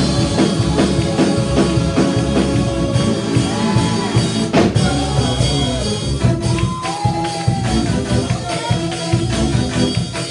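Live church praise-break music: a drum kit pounding out a fast beat with tambourine, under held and sliding instrument notes and some singing.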